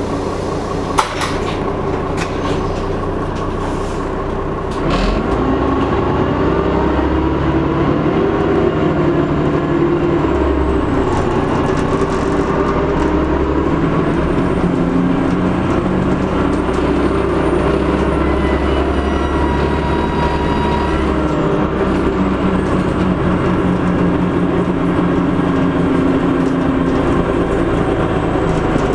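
Dennis Trident double-decker bus's diesel engine running under way with a high turbocharger whistle that slides up and down in pitch. The engine grows louder about five seconds in, and there is a sharp click about a second in.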